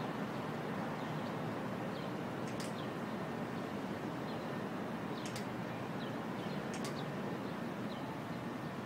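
Steady city background noise, with a few short, high chirps.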